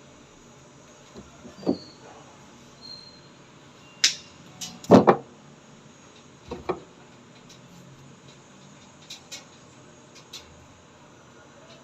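Scattered knocks and clicks of things being handled during installation work, the loudest a double thud about five seconds in, over a faint steady hiss.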